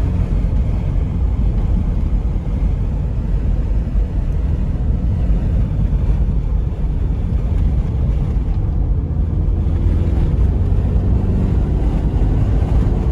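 Mitsubishi Galant VR4 on the move: a steady, loud low rumble of engine and road noise.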